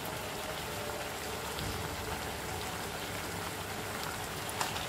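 Steady sizzle of desi chicken pieces cooking in a steel pan, the broth nearly boiled away, with a light tap near the end.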